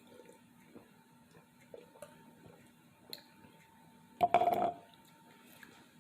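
Faint steady hum of a malfunctioning home furnace, with small clicks and mouth noises from eating and drinking, and one short, louder burst of sound about four seconds in.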